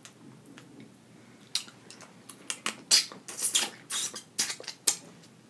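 A crawfish being peeled by hand and eaten: a run of sharp crackles from the shell and wet clicks of the mouth, thickest in the second half.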